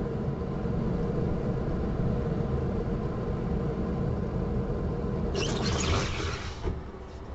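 Worn rear wheel hub bearing of an Audi 80 B3 giving a low, steady hum (гул) as the freely hanging rear wheel turns, heard up close from the rear axle beam; the hum dies down near the end. The bearing is worn out and needs replacing. A brief rustling hiss comes about five and a half seconds in.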